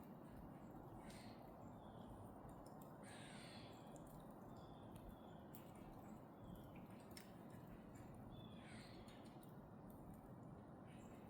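Faint wild bird calls: three stronger calls that fall in pitch, about a second, three seconds and nine seconds in, with several short thin notes between them, over a steady low background rush.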